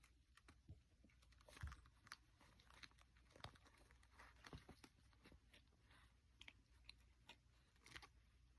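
Kittens scuffling with a hat: faint, irregular little clicks and scratches, like claws and teeth working at fabric, over a low room hum.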